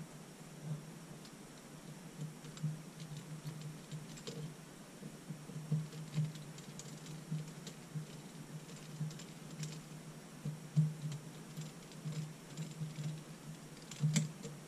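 Small Phillips screwdriver backing tiny screws out of a plastic mini-quadcopter frame: faint, irregular clicks and ticks of the driver tip and the plastic parts being handled.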